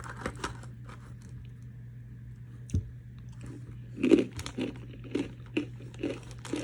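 A person biting and chewing a crunchy snack close to the microphone. After a few soft mouth clicks and one sharper snap, steady crunching chews start about four seconds in, roughly two a second.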